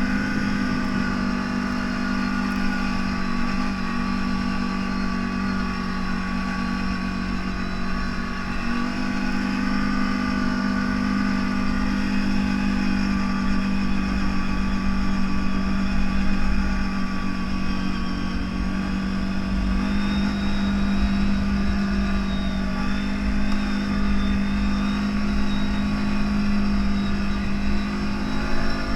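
CFMoto 1000 off-road vehicle's engine running at a steady speed under way. Its pitch steps up slightly about nine seconds in and again about twenty seconds in.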